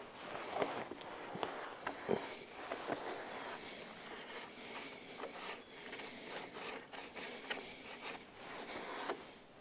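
Metal shovel blade scraping and scooping ash inside the steel chimney clean-out of an outdoor wood boiler, a run of irregular scrapes and clinks.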